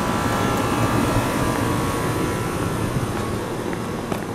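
Steady street traffic noise, with the whine of a passing vehicle fading away over the first two seconds or so, and a single click near the end.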